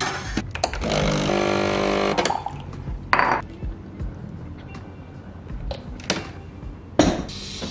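Breville espresso machine's pump buzzing steadily for about a second and a half as a shot pulls into a ceramic mug, then a brief clink. Near the end, a sharp knock followed by a hiss of about two seconds.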